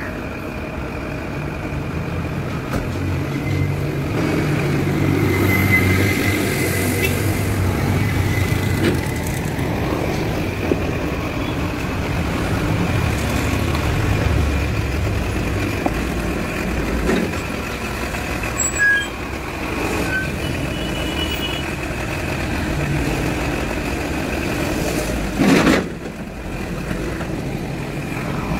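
Flatbed recovery truck's engine running steadily at idle. About 25 seconds in comes a short, loud burst of hiss, and near the end the truck moves off.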